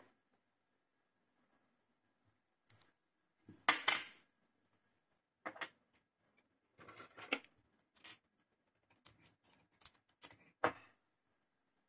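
Electric scooter disc brake caliper and pad being handled and fitted by hand: irregular clicks and short scrapes of small parts knocking together, with a quick run of clicks near the end.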